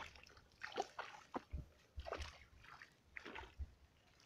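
Shallow ditch water splashing and sloshing in a few short, separate splashes as a woven bamboo basket trap is worked up out of the water.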